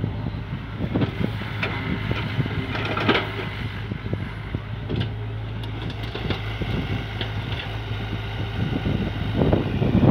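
Hyundai crawler excavator's diesel engine running steadily with a low hum while it digs wet mud, with scattered short knocks and clunks from the working arm and bucket.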